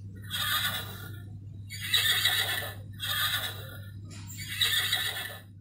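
Sound board book's electronic sound chip playing a recorded horse whinny through its small speaker: four whinnies in a row, the second the loudest, over a steady low electrical hum.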